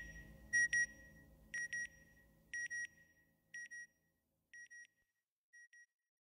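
Electronic beeps in quick pairs, about one pair a second, each pair fainter than the last until they die away. A faint low hum underneath fades out about halfway through.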